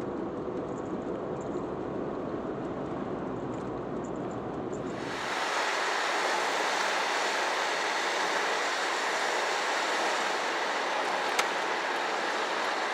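Steady road and engine noise inside a kei van at expressway speed, with a low rumble. About five seconds in it cuts abruptly to a steady, brighter hiss with no rumble, and there is a single click near the end.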